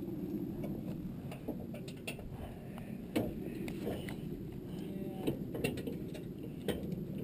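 Scattered light metal clicks and taps as clips are fitted to the steel frame of a hitch-mounted carrier holding a paramotor trike, over a steady low rumble.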